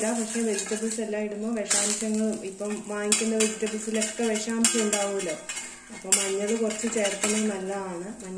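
Steel spatula scraping and clacking against a cast-iron dosa tava as a thick ragi and sprouted-moong dosa is pressed and flipped, with frying sizzle, over a low wavering hum.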